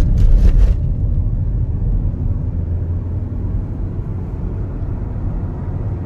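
Steady low rumble of road and engine noise inside a moving car's cabin, with a few brief rustling noises about half a second in.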